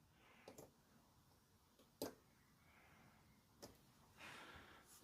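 Near silence: room tone with a few faint, short clicks, the sharpest about two seconds in.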